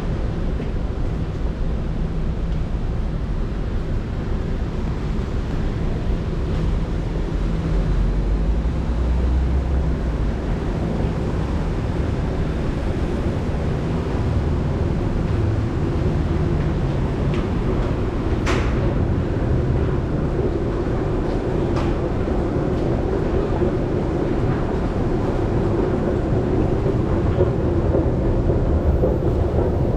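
Steady low rumble of road traffic and city ambience, giving way to the hum of an MRT station entrance. One sharp clack a little past halfway.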